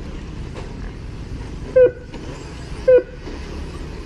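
A dog barks twice, two short, sharp barks about a second apart, over a steady background rumble.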